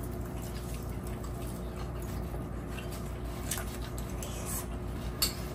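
Quiet eating sounds: soft chewing and a few light clicks of a spoon against a bowl, over a steady low hum. A sharper click comes near the end.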